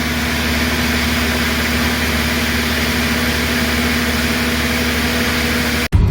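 550 kVA diesel generator running at a steady speed: an even engine drone with constant low tones, which cuts off abruptly near the end.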